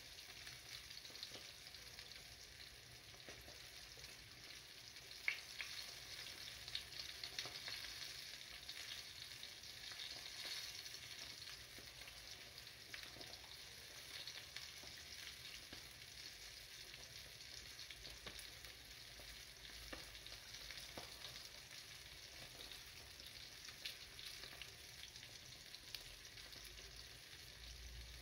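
Sole fillets frying in oil in a frying pan: a steady, quiet sizzle with scattered small crackles and one sharper pop about five seconds in.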